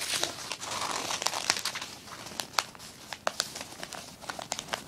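Sheets of paper being handled and crinkled, with many sharp crackles and a denser rustle in the first couple of seconds.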